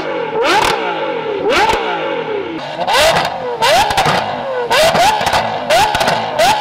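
Ferrari 812's V12 through a Novitec exhaust revved repeatedly while standing, each rev climbing and falling back about once a second; about a third of the way in it gives way to a Lamborghini Aventador SVJ's V12 being blipped in quicker, shorter revs with sharp cracks at the peaks.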